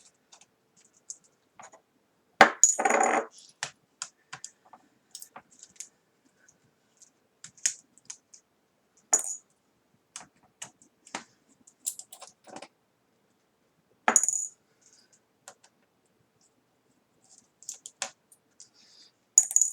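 Small Phillips screwdriver taking out the tiny 2x3mm screws that hold a laptop display panel: irregular light clicks and small metallic clinks, with louder knocks about two and a half seconds in and about fourteen seconds in.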